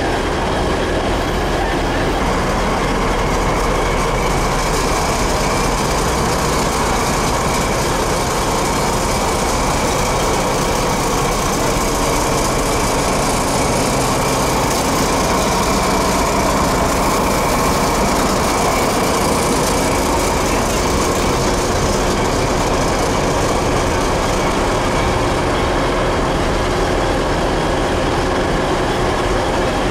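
Railway vehicle's diesel engine running steadily at idle, a constant hum with no change in level.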